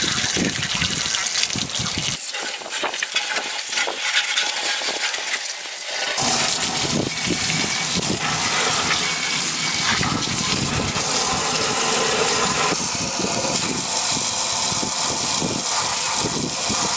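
A garden hose spray nozzle shoots a jet of water onto a Ford 5.0 cast-iron engine block and pistons inside a steel barrel tank. It makes a steady hiss of spray and spatter as it rinses off the oily grime left by the hot soak. Between about two and six seconds in, the sound turns thinner and hissier, then comes back fuller.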